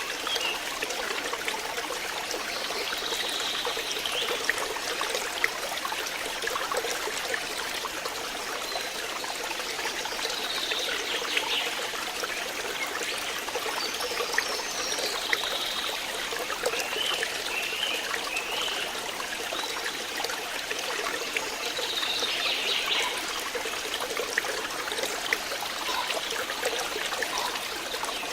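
Flowing water trickling and splashing steadily, a continuous rush dotted with small drips and splashes.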